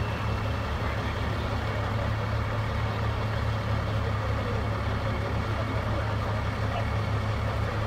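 Heavy diesel engines of tow-truck wreckers running steadily with a deep, even hum, powering the booms during the lift of an overturned cement truck.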